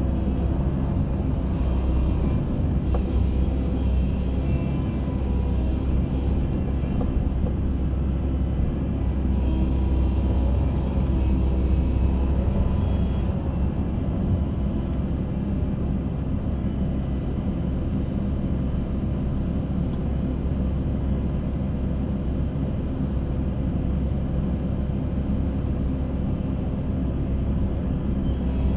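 Concrete mixer running steadily with a continuous low engine rumble.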